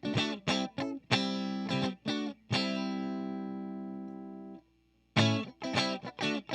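Electric guitar chords from a PRS Silver Sky with single-coil pickups, through an HTJ Works Valve Crystal 12AX7 preamp pedal into a 6L6 tube amp's power section. Quick rhythmic strumming leads into one chord left ringing for about two seconds, which is then choked off. After a brief silence the strumming starts again near the end.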